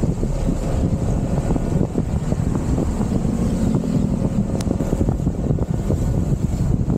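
Steady wind buffeting a camera microphone on a moving motorcycle, with the motorcycle's engine running underneath.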